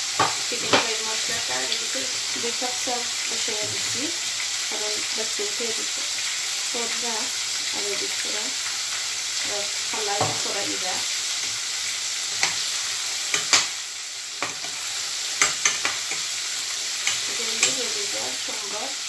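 Chicken pieces in a spiced flour coating frying in hot oil in a stainless steel pot: a steady sizzle, with a metal spoon clicking against the pot now and then as the pieces are turned.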